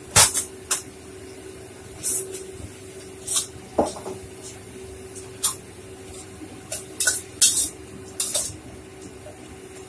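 Metal spatula clanking and scraping against a wok while stir-frying greens, in irregular clinks, over a steady hum from the stove.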